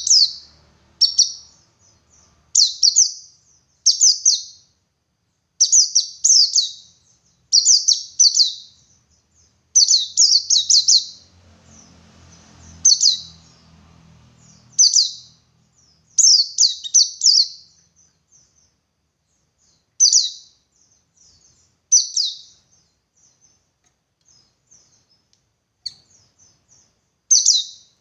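White-eye (pleci) singing in the 'ngalas' style: short bursts of rapid, high twittering chirps every one to two seconds, thinning out to fewer, softer notes in the second half.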